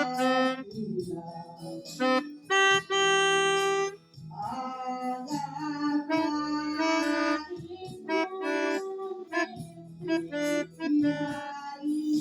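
Pianika (keyboard melodica) playing a song melody in reedy notes, some held for about a second and some short, over steady lower notes.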